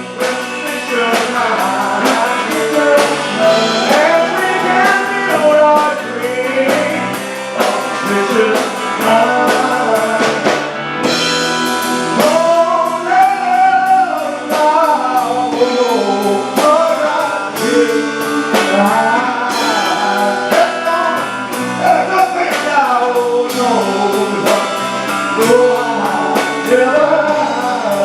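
Live band performing a song, with lead singing over guitar and drum kit.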